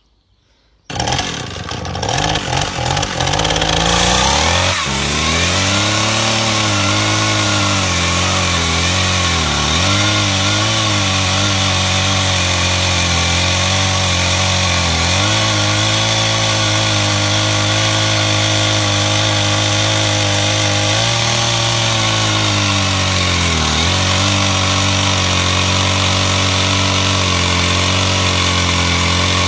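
Stihl 032 AV two-stroke chainsaw starting up about a second in and running at high revs for a few seconds, then dropping to idle. The idle is steady but wavers, dipping briefly twice.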